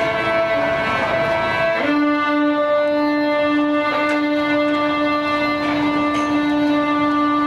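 Violin playing slow, long held notes; about two seconds in it moves to a slightly lower note and holds it for several seconds.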